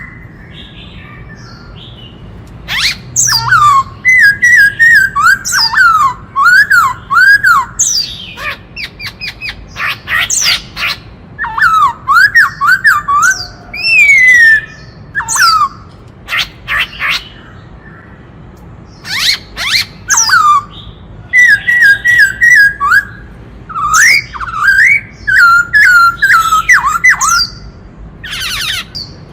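Black-throated laughingthrush singing: loud phrases of rising and falling whistled notes, repeated again and again and broken by bursts of rapid harsh notes, with short pauses between phrases.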